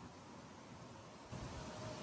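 Faint steady hiss with a low rumble of outdoor background noise, getting louder about a second and a half in.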